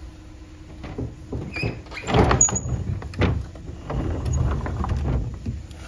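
Old wooden sliding door of a traditional Japanese house scraping and rattling along its track as it is pushed open in several rough, uneven movements, with a sharp knock about three seconds in.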